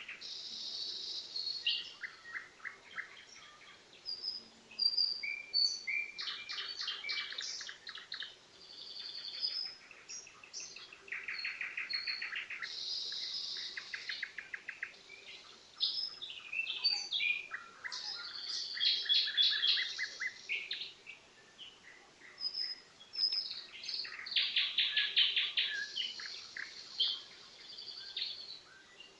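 Nightingale singing: a string of varied phrases, fast trills of rapidly repeated notes alternating with short high whistled notes, each phrase followed by a brief pause.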